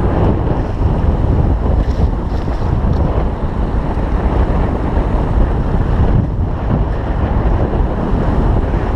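Strong wind buffeting the camera microphone, over water rushing and splashing along the hull of a small sailboat heeled and moving fast.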